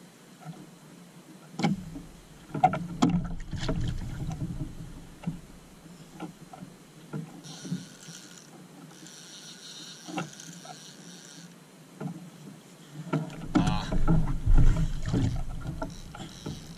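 Small outrigger boat on the water: low rumbles and knocks against the hull in two louder spells, starting about one and a half seconds in and again about thirteen seconds in.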